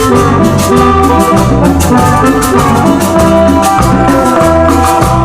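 A cumbia band playing live: a bright melody over bass and a steady drum and percussion beat.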